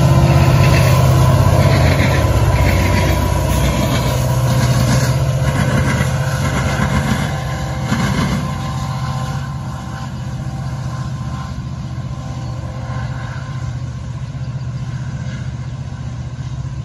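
Canadian Pacific diesel-electric locomotive at the rear of a freight train passing, its engine's steady low drone mixed with train running noise. The sound is loudest at first and fades over the last several seconds as the locomotive moves away.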